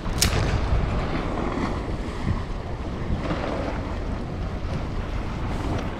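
Wind buffeting the microphone over the wash of the sea, with a sharp click just after the start.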